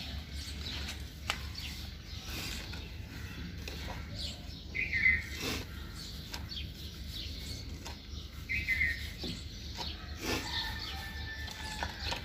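Hands rubbing and crumbling flour with oil in a clay bowl, a soft dry rustling. A bird chirps briefly twice in the background, about five and nine seconds in.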